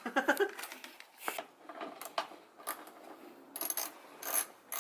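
Scattered sharp metallic clinks and clicks of hand tools and parts being handled, with a quicker run of light ticks near the end.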